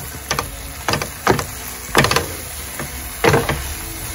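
Wooden spatula stirring and scraping a lentil and tomato mix around a non-stick frying pan: a handful of separate scrapes, the loudest about two seconds in and just after three seconds.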